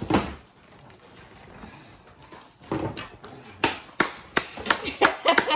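A run of sharp, irregular hand taps or slaps, roughly three a second, starting about three seconds in, after a single thump at the very start.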